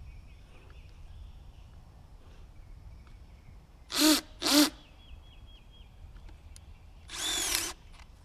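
Animal calls: two short, loud calls about half a second apart, then a longer, harsher call near the end. Faint bird chirping runs underneath.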